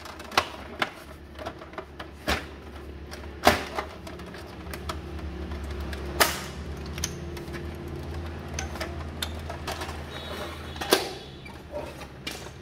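Hard plastic clicks and knocks as the side cover of a Brother HL-L2321D laser printer is pressed and snapped back onto the chassis. A handful of sharp, louder knocks stand out among lighter handling clatter.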